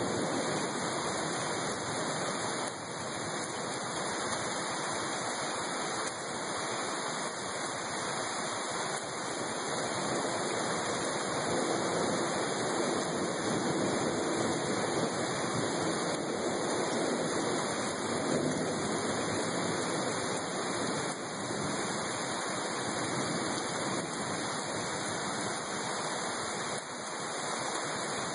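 Heavy rain falling steadily, an even, continuous hiss of water pouring down with no breaks.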